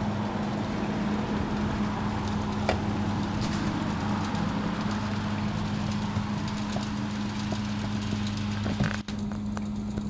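G-scale model train running on garden track: a steady low hum with scattered light clicks from the wheels on the rails.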